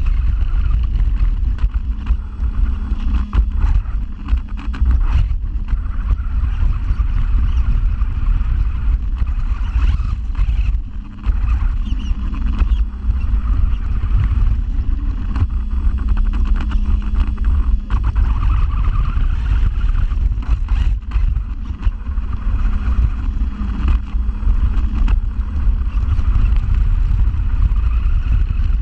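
RC car's motor and drivetrain running, its pitch rising and falling with the throttle, over a heavy rumble and frequent knocks of the chassis jolting across rough, grassy ground. Heard from inside the car's body shell.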